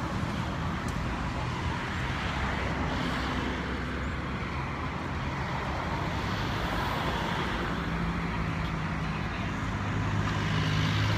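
Highway traffic: a steady rush of passing cars and trucks, with a heavy vehicle's engine drone growing louder near the end.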